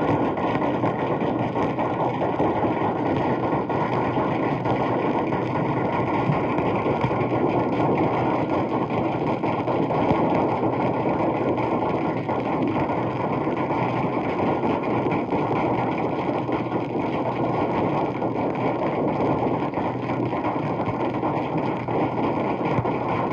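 Crowd applause from a 78 rpm sound-effects disc: steady, dense clapping that sounds muffled through the old record's narrow range.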